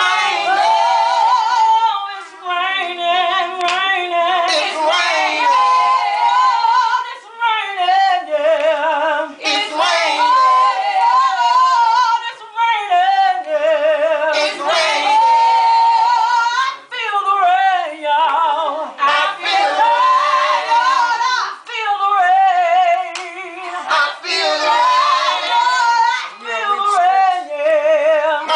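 A woman singing a gospel song loudly with a wide vibrato, in long held phrases broken by short pauses for breath every few seconds.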